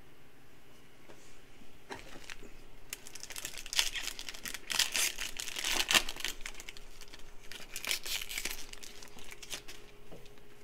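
Foil wrapper of a Panini Prizm trading-card pack crinkling and tearing as it is ripped open by hand. A crackling rustle begins about three seconds in, is loudest in the middle, and dies down near the end.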